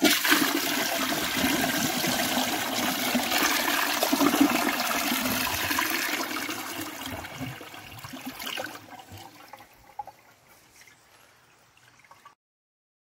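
A 1997 Crane Galaxy Elite toilet flushing, clearing dirty water from the bowl. A loud rush of water for about six seconds fades over the next few seconds to a faint trickle, then cuts off suddenly.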